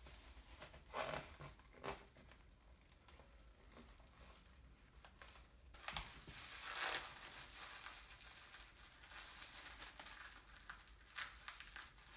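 Thin 6-micron Mylar polyester film crinkling in bursts as it is pulled around the jig's edge and pressed onto double-sided tape, loudest about six to seven seconds in.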